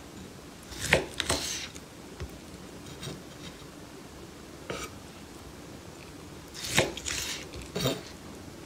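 Chef's knife slicing through a seared beef steak and knocking on a wooden cutting board. The sharp knocks, each with a short rasp of the blade, come loudest about a second in and again near the end, with a few lighter taps between.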